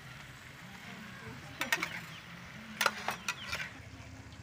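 Metal spatula clinking and scraping against a steel wok of stir-fried vegetables, in two short bursts of sharp clicks, the first about a second and a half in and the second about three seconds in.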